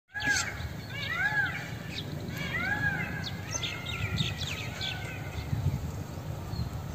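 Birds calling: three clear arched notes, each rising then falling, about a second apart, then fainter notes and a quick flurry of high chirps around the middle, over a steady low rumble.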